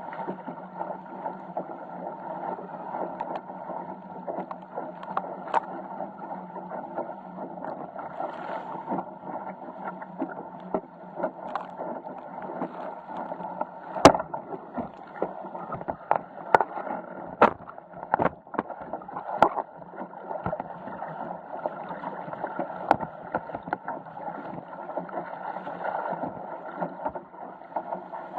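Water rushing and splashing along the hull of a Musto skiff under sail, a steady wash broken by many sharp knocks and slaps, the loudest about halfway through.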